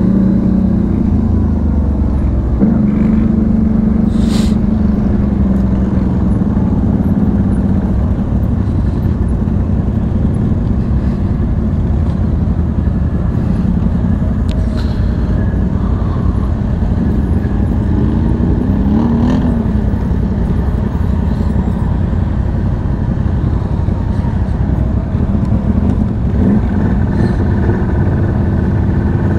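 V-twin ATV engine running while riding, its pitch wavering with the throttle and rising and falling briefly about two-thirds of the way through.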